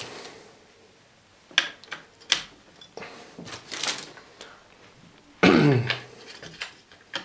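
AA batteries clicking and rattling as they are pushed into the plastic battery compartment of a budget LED video light, with a few sharp clicks. About five and a half seconds in comes a man's loud exasperated vocal sound that falls in pitch.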